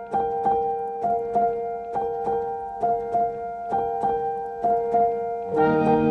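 Background music: a keyboard plays a repeating pattern of notes, about three a second, and near the end fuller held chords with low notes join in and it grows louder.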